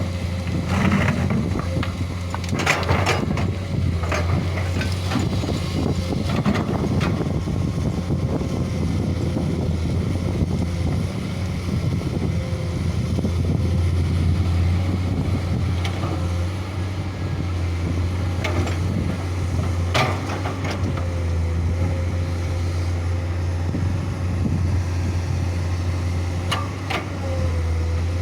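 Komatsu PC200 excavator's diesel engine running steadily at working revs, with occasional sharp knocks and clanks.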